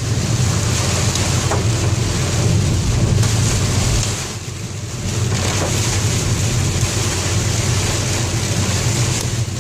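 A car driving in rain: rain hitting the car and tyres hissing on the wet road over a steady low drone of the moving car. The rain noise dips briefly about four seconds in.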